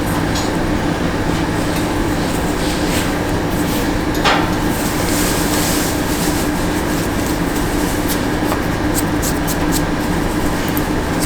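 Steady whir of an electric blower motor with a low hum underneath. A short rising squeak about four seconds in, and a few light clicks later on.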